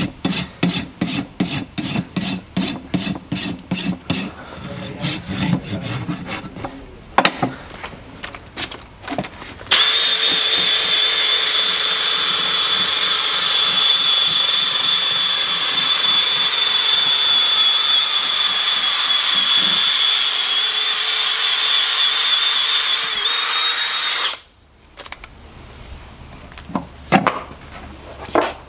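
Farrier's rasp worked across a horse's hoof in rapid even strokes, about three a second. About ten seconds in, a power tool starts and runs steadily with a high whine for about fifteen seconds, then cuts off, leaving a few light knocks.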